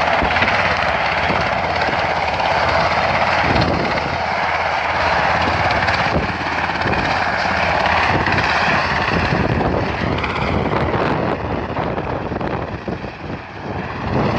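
Coastguard rescue helicopter running on the ground, its engines and rotor making a loud, steady noise that dips slightly near the end.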